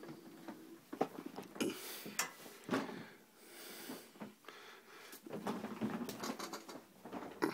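Heavy, wheezy breathing close to the microphone, mixed with knocks and rustles from a phone being handled and moved about.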